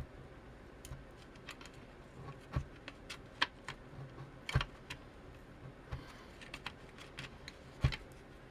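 Irregular small clicks and taps of parts being handled while a soldering station is taken apart, with the sharpest knocks about halfway through and near the end.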